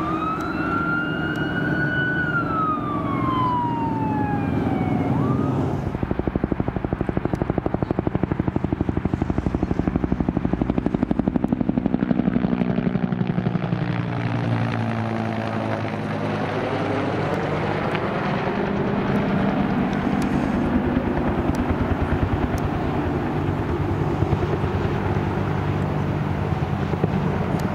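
A fire engine's wail siren winds down in pitch over its engine for the first five seconds or so. Then the steady rotor beat of a CAL FIRE Bell UH-1 Huey helicopter's two-bladed rotor takes over as it flies overhead, with a sweep in its tone about midway as it passes closest.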